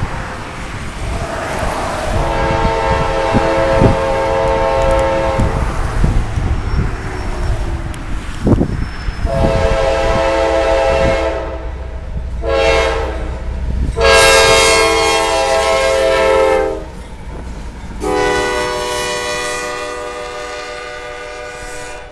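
CSX freight locomotive's multi-chime air horn sounding the grade-crossing signal as the train approaches: long, long, short, long, then one more long blast. A low diesel rumble runs beneath.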